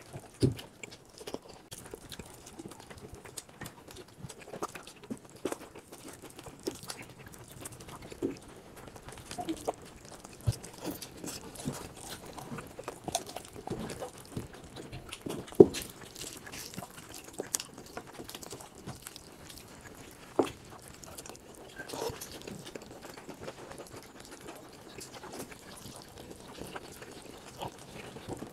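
People eating with their hands: scattered wet chewing and lip-smacking and the soft clicks of cooked chicken being pulled apart, with one sharper click about halfway through.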